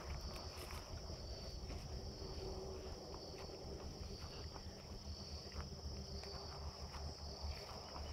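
Insects, crickets or cicadas, chirring in a steady, continuous high-pitched drone, over a low rumble and scattered soft steps through grass.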